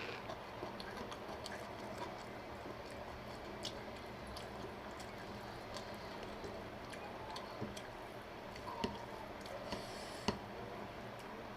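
Close-up eating sounds: wet, squishy chewing of chicken curry and biryani, with many small clicks and a couple of louder sharp clicks near the end.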